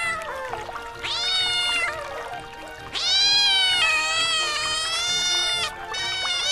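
Domestic cat meowing several times: a meow about a second in, a long drawn-out meow from about three seconds to nearly six, and another starting near the end.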